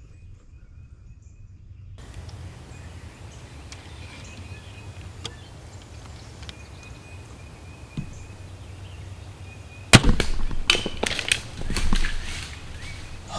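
Bow shot at a hog: one sharp crack of the bow and arrow striking, followed by about two seconds of crashing and scuffling as the hit hog bolts. Before it, quiet outdoor ambience with a faint steady insect trill.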